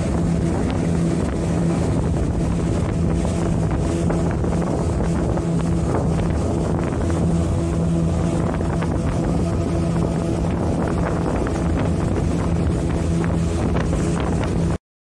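A small speedboat's engine running steadily at cruising speed, a low even drone, with wind buffeting the microphone. It cuts to silence just before the end.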